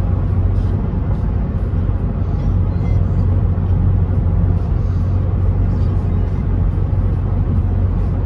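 Steady road noise heard inside the cabin of a vehicle moving at highway speed: an even low rumble of tyres and engine.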